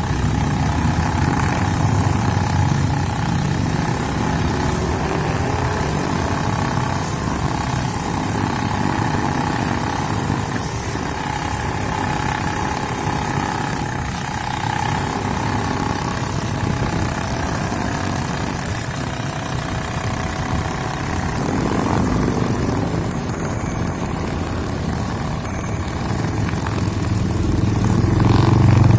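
Honda GX35 four-stroke brushcutter engine running steadily while cutting grass with nylon trimmer line, getting louder near the end.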